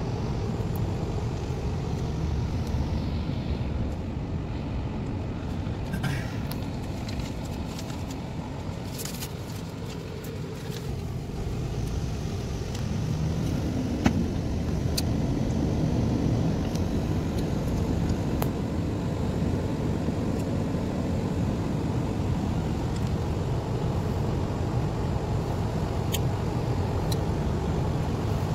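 Steady road noise inside a moving car's cabin: the engine and tyres make a low rumble, with a few faint clicks.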